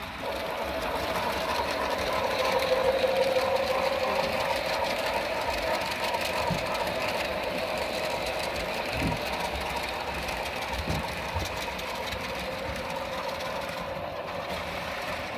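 Model train running along the layout track: the steady mechanical running noise of the locomotive and its passenger cars rolling on the rails, with a few soft knocks around the middle.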